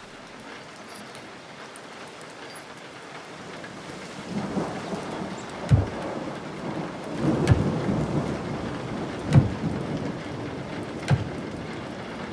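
Sound design of an animated video artwork: a rain-like hiss swells from about four seconds in, and deep thuds land about every two seconds over it.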